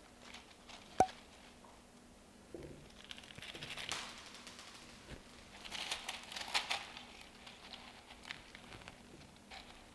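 Hands working among a potted begonia's stems and the LECA expanded-clay pebbles in its pot: the pebbles rattle and crunch and the leaves rustle in two spells of rustling, after a single sharp tap about a second in.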